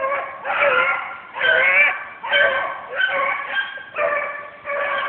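Beagles baying in a steady string of drawn-out bays, about eight in quick succession: hounds giving voice as they run a rabbit's trail.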